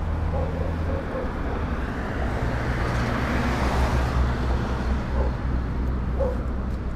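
Road traffic: a vehicle passes close by, swelling to its loudest about three to four seconds in and then fading, over a steady low engine hum.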